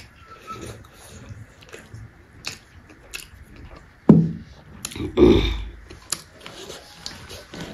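Close-miked eating sounds: chewing and mouth smacking, with light clicks and scrapes of fingers and food against steel bowls and a steel plate. Two louder short sounds come about four and five seconds in.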